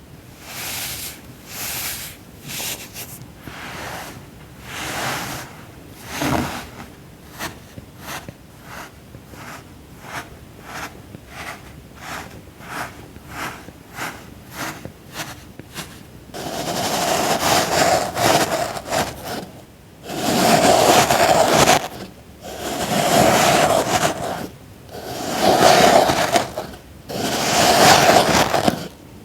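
A tool cutting and scraping through packed sand, crunching and gritty. First a run of short crisp cuts, about two a second, then from about halfway longer, louder scraping strokes, one every two seconds or so.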